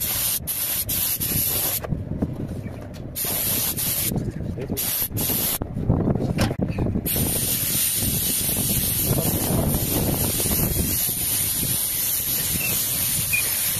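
Gravity-feed compressed-air paint spray gun spraying, a steady hiss that cuts out briefly a few times in the first half as the trigger is let off.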